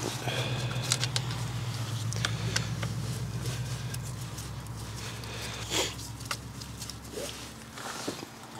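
Light clicks and scrapes of a screwdriver undoing the engine cover fastenings on a Renault Clio 172, with a louder clatter about six seconds in. A low steady hum runs underneath and fades out near the end.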